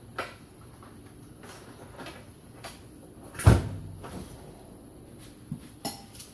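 Handling noises while working on a small lawnmower engine: a few light clicks and knocks, with one solid thump about three and a half seconds in.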